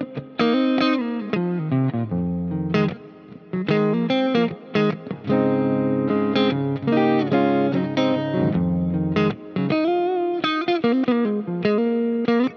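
PRS SE NF3 maple-neck electric guitar played through an amp-simulator plugin with delay and reverb, over a backing track: held chords and single-note lines, with a quick run of notes with vibrato near the end.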